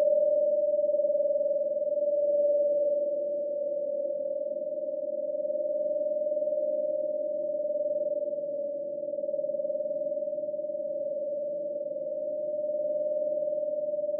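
Synthesized ghost sound effect: one steady, eerie tone held at a single pitch with a slight waver, over a fainter, rougher low drone, swelling and easing gently in loudness.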